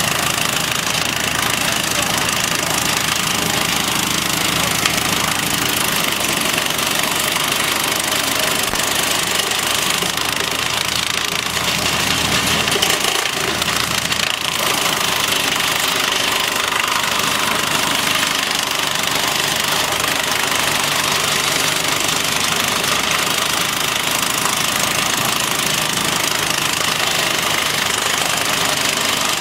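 LGW 254 compact tractor's engine running steadily under load, driving a Glo-WC 10 PTO branch chipper as branches are fed in and chipped. The chipper's two knives cut the wood, and two hydraulic feed rollers pull the branches in.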